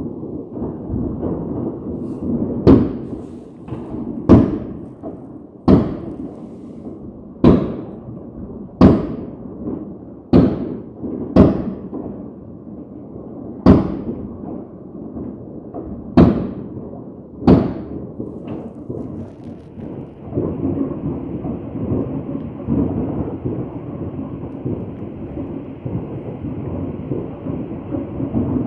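Fireworks going off: about ten sharp bangs, one every second or two, over a steady low rumble. The bangs stop about two-thirds of the way through while the rumble goes on.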